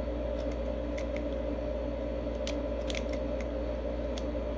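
A few scattered small clicks as the number wheels of a Master Lock 5400D combination lock box are turned by hand, over a steady background hum.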